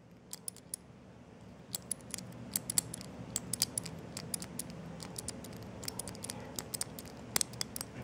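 Small three-dial combination luggage lock being worked through its combinations: a string of light, irregular clicks, several a second, as the number wheels are turned step by step and the shackle is pushed in after each turn to test it.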